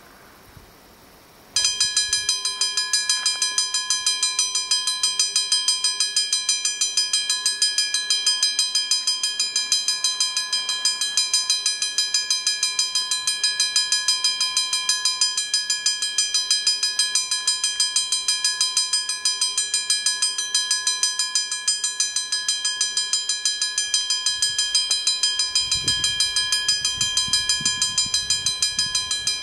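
Level crossing warning bell starting abruptly about a second and a half in and ringing rapidly and evenly, about four strokes a second, as the crossing signal activates. A low rumble joins the bell near the end.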